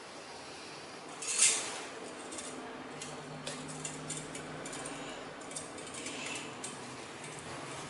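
Light clinks and ticks of thin aluminium drink-can strips and a small pin being handled and fitted together, with one louder brief noise about a second and a half in.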